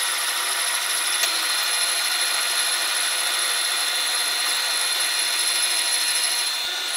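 Metal lathe turning a spinning wheel rim, the cutting tool scraping steadily over the metal with a steady high whine.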